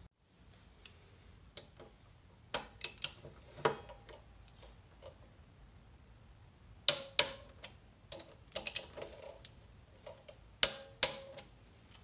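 Torque wrench with a 5 mm Allen bit tightening the brake pad pins on a Nissin front brake caliper to 13 ft-lbs: short groups of sharp metallic clicks from the wrench's ratchet, several times over.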